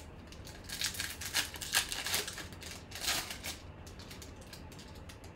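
Foil wrapper of a 2020 Bowman Chrome baseball card pack torn open and crinkled by hand. Dense crackling for a couple of seconds from about a second in, then quieter handling.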